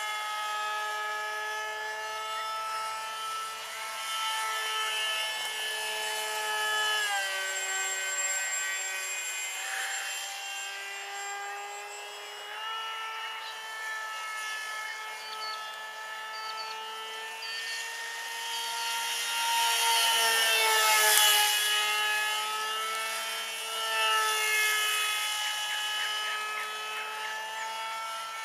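Electric motor and propeller of a small RC foam F-22 model plane whining in flight. The pitch shifts as the throttle is worked, stepping down about a quarter of the way in and back up a few seconds later. The sound grows loudest about three-quarters of the way through, and the pitch drops just after.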